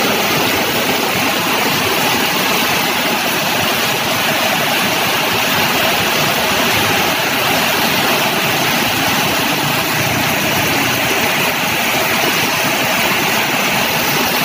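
Heavy downpour: a loud, steady hiss of rain falling on a flooded road, with motorbikes passing through the floodwater.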